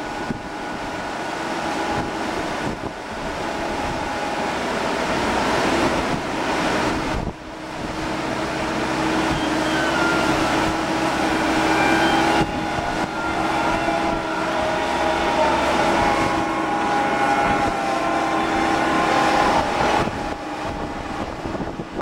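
Crane machinery running steadily, a loud drone with several held tones and a wavering whine that rises and falls in its middle part, with wind buffeting the microphone. The sound drops out briefly twice, about 7 and 12 seconds in.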